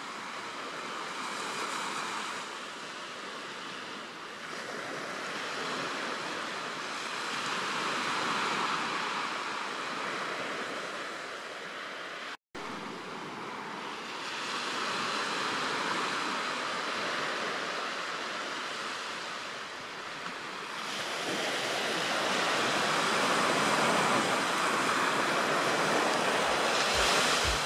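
Sea surf breaking and washing up a sandy beach: a steady rushing that swells and ebbs every several seconds, with a brief dropout about twelve seconds in.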